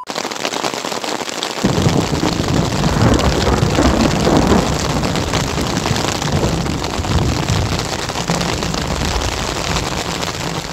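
Heavy rain falling on a tent's fabric, heard from inside the tent as a loud, dense patter. About two seconds in a deep, low rumble joins it and carries on steadily.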